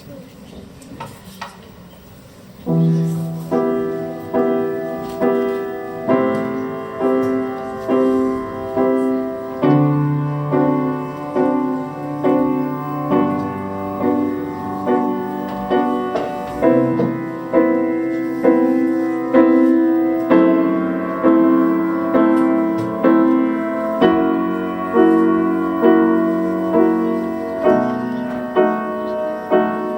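Piano playing slow chords, about one a second, each ringing and fading before the next. It comes in about three seconds in, after a quiet stretch with a few faint clicks.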